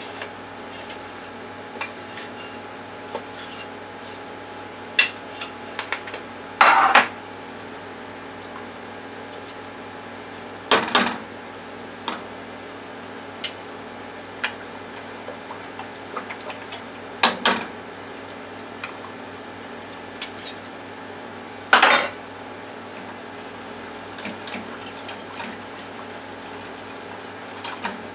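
A metal spoon and a wire whisk clink and scrape against stainless steel pans as roux is scraped out of a small pan and whisked into a saucepan of chowder. Four louder clatters are spread through, with lighter clinks between, over a steady faint hum.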